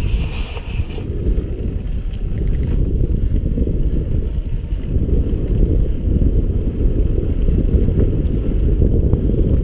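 Wind rushing over the microphone of a chest-mounted camera on a mountain bike riding fast down a dirt forest trail, mixed with tyre rumble over the ground. A few light clicks and rattles from the bike come through, mostly in the first second.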